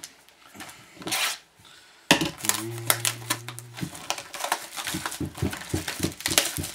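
A hockey card box being unwrapped and handled: crinkling plastic wrapper and rustling, clicking cardboard, a rapid run of small crackles in the second half. A steady low hum sounds for about a second and a half in the middle.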